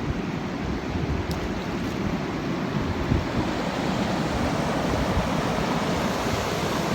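Steady rush of fast-flowing water at a waterfall, with a low rumble of wind buffeting the microphone.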